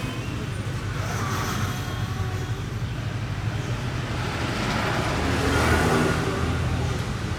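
Steady low rumble with a noisy haze above it, swelling louder about five to six seconds in.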